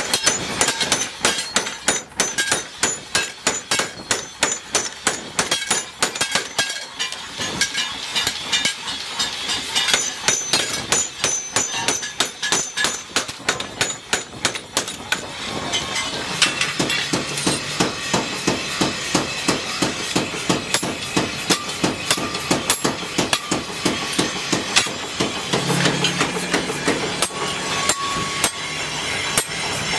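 Power hammer pounding a red-hot steel cleaver blade on its die: a rapid, even run of blows, about four a second at first, coming faster and closer together through the second half.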